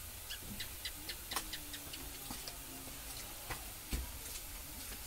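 Chulbule dough strands deep-frying in hot oil in a karahi: a soft sizzle with irregular sharp crackles and pops.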